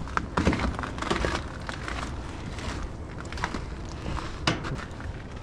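Footsteps crunching on frozen ground, an uneven run of short crunches.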